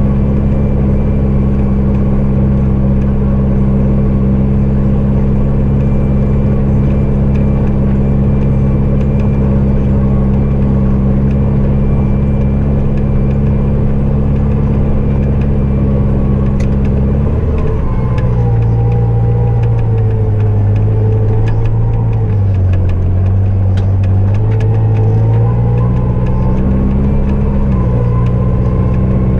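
Diesel engine of a snow-clearing vehicle running steadily at high revs. About two-thirds of the way through, the engine speed drops and wavers, then rises again near the end.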